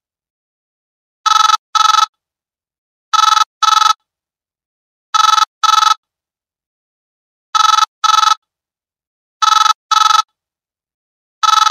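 Old telephone ringtone sounding in double rings (two short rings close together) that repeat about every two seconds, with silence between each pair.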